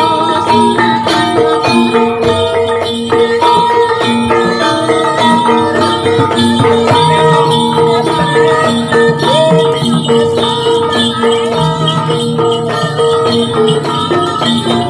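Javanese gamelan music for a kuda lumping dance: metal gong-chime and metallophone notes struck over and over at a few fixed pitches, with jingling rattles throughout.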